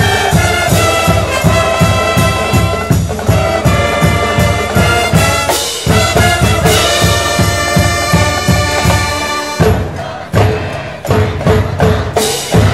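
Cheering brass band of trumpets and trombones playing a high school baseball cheering song over a steady drum beat. About ten seconds in the held chords break off and the band moves into short, punchy notes with drum hits.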